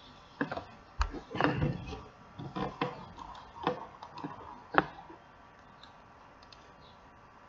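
Irregular clicks and knocks from working a computer mouse at a desk, a dozen or so in the first five seconds, some with a dull thud, then they stop.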